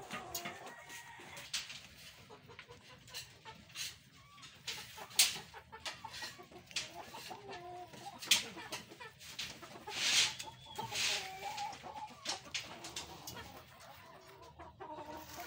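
Chickens clucking, with sharp knocks scattered through; the loudest knocks come about five and eight seconds in.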